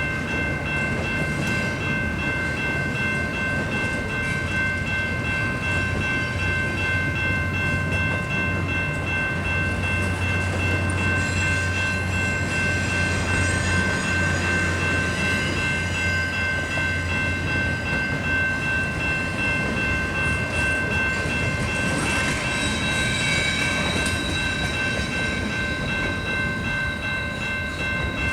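Canadian Pacific intermodal stack freight train rolling past: steady rumble of wheels on the rails, with a high ringing of several tones held throughout. A low hum swells about six seconds in and fades by about eighteen seconds.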